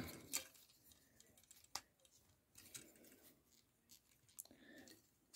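Near silence, broken by a few faint, scattered clicks of a plastic Transformers action figure's parts being handled and moved.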